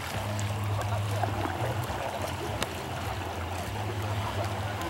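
Water lapping and trickling around a kayak drifting on a slow river, with a few faint light splashes and a steady low hum underneath.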